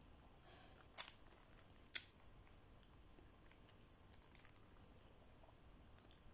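Quiet chewing of a mouthful of burger, with faint mouth noises and two sharp clicks about one and two seconds in.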